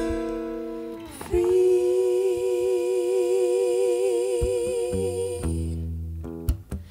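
Two women's voices holding one long note together in close harmony, with a slow, even vibrato, over a fading guitar chord; bass and guitar come back in near the end.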